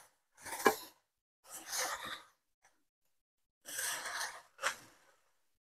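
Rice vermicelli being tossed and stirred in a non-stick wok with a silicone spatula and a wooden spatula: about four short bursts of scraping and rustling, with a sharp click where a spatula knocks the pan.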